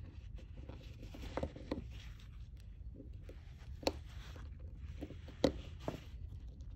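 A small flat-blade screwdriver working a steel spiral retaining ring into its groove, with irregular small metallic clicks and light scrapes; the loudest clicks come about 1.5, 4 and 5.5 seconds in. A steady low hum runs underneath.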